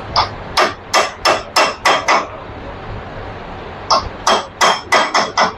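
Hammer blows on a Royal Enfield Classic 500 crankshaft as it is trued straight, the steel ringing after each strike. There are two runs of about seven blows, with a pause of a couple of seconds between them.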